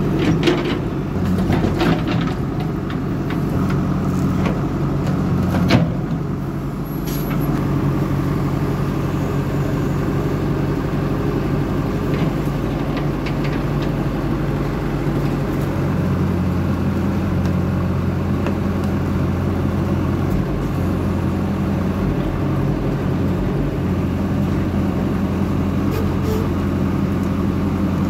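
JCB backhoe loader's diesel engine running steadily, with a few sharp knocks in the first six seconds. About sixteen seconds in, the engine note steps up and grows fuller as the machine takes load with its bucket pressed against a tree trunk.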